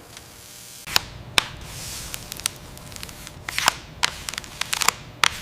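A series of irregular sharp clicks and taps, about ten of them, starting about a second in, over a faint hiss.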